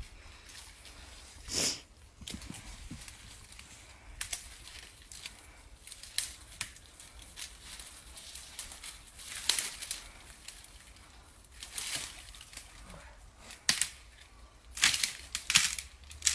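Dry leaf litter and twigs crunching and rustling in irregular bursts under the feet and hooves of people and a trapped, struggling mouflon on the forest floor.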